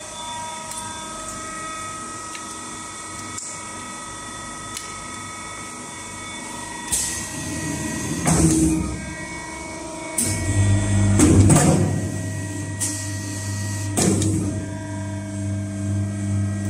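Hydraulic hot plate plastic ball welding machine running: a steady high whine, then several short hissing clacks as the press works. A deep steady hum sets in about ten seconds in.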